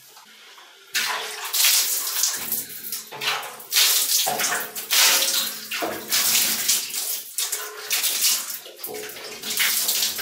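Water thrown from a handheld container against a glass shower enclosure, splashing onto the glass and tiles in repeated dousings starting about a second in, rinsing the vinegar cleaning mixture off the glass.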